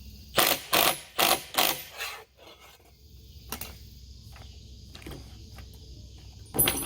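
Mechanical metal clicking from tools working the eyelet bolts: five quick ratcheting clatters in the first two seconds, a few faint ticks, then one more clatter near the end.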